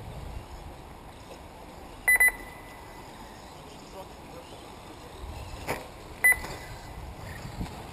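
Short electronic beeps from an RC race lap-timing system, each marking a car crossing the timing line: a double beep about two seconds in and a single one just after six seconds. Under them is a low steady background hiss, with a sharp click just before the second beep.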